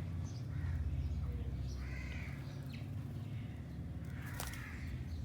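Parrots, Alexandrine and ringneck, giving a few short harsh squawks spaced a couple of seconds apart, over a steady low rumble.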